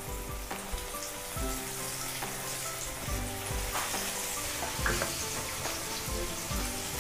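Cornflour-coated okra (bhindi) deep-frying in hot oil in a kadai, sizzling steadily.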